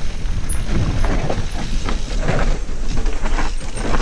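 Mountain bike descending a rough singletrack: steady wind rush on the microphone with tyres rolling over rock and dirt and frequent short rattles and knocks from the bike as it hits bumps.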